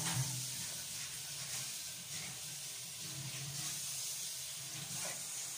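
Kitchen tap running steadily into a stainless-steel sink while dishes are rinsed under the stream, a constant hiss of water.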